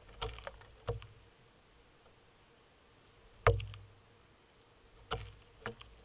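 Western gull pecking at birdseed on a railing right at the camera: irregular hard knocks of its bill, the loudest about three and a half seconds in.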